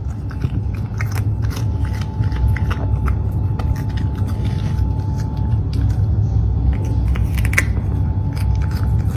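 A cat crunching and chewing pieces of raw cucumber: many irregular crisp crunches over a steady low hum.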